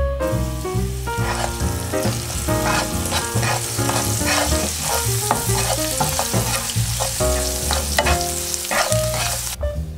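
Chopped garlic and spices sizzling as they fry in butter and olive oil in a nonstick pan, with a wooden spatula stirring and scraping through them. The sizzle cuts off suddenly just before the end.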